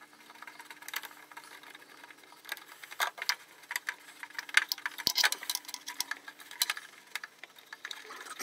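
Irregular small metallic clicks, taps and rattles of hands and a screwdriver working inside a MIG welder's open wire-feed compartment, unscrewing and pulling out the old torch lead.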